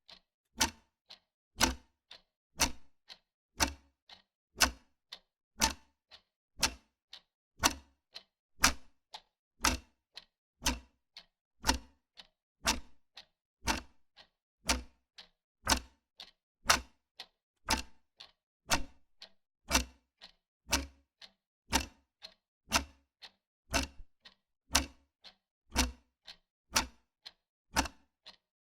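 Wall clock ticking steadily, about two ticks a second, alternating a louder and a softer tick.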